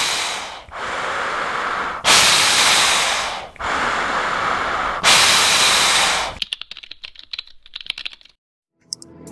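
Breathing in and out through a Woobi Plus filter mask, three loud breaths alternating with softer ones. About six and a half seconds in this gives way to a rapid run of keyboard typing clicks, then a brief silence.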